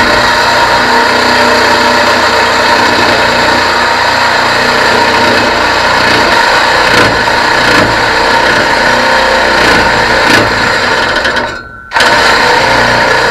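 Power cutting tool with an abrasive wheel cutting through the steel exhaust pipe, giving a loud, steady whine. Near the end it briefly dies away, then cuts back in.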